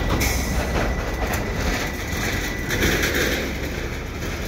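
CP diesel switching locomotives, a GP20C-ECO and GP38-2 pair, running as they move off along the yard track: a steady low rumble.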